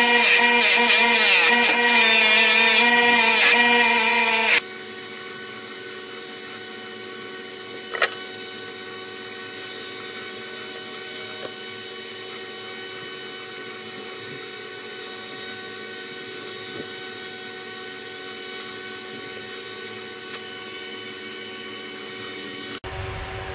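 Bench buffer motor running with a knife pressed against its spinning buffing wheel, a steady hum under a rough scraping, cutting off abruptly about four and a half seconds in. A much quieter steady hum follows, with one sharp knock a few seconds later and a few faint ticks.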